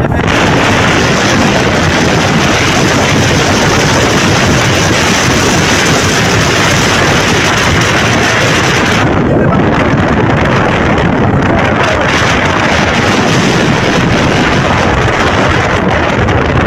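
Loud, steady rushing noise with no clear pitch, like wind buffeting a phone's microphone; its hiss thins out briefly about nine seconds in.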